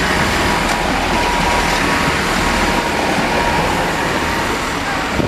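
A GWR Turbo diesel multiple unit passes close by at a level crossing, with a steady, loud rush and rumble of wheels on rail and its underfloor engines. The last carriage goes by near the end.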